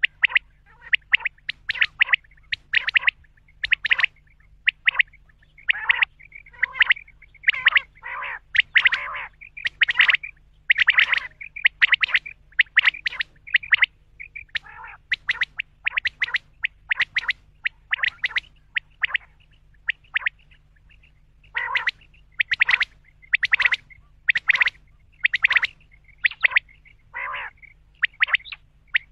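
Common quail calling: a long run of short, sharp notes repeated about twice a second, with a brief pause about two-thirds of the way through.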